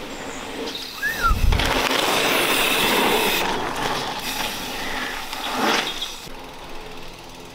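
Mountain bike tyres rolling fast over a gravel and dirt trail as a rider passes close by, with a thump about a second in and a second surge of tyre noise near the end.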